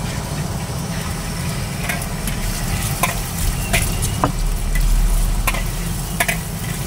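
Beaten egg frying and sizzling in hot oil in a steel wok, stirred with a wooden stick and a long metal ladle that clinks and scrapes against the wok several times in the second half. A gas wok burner's steady low rumble runs underneath.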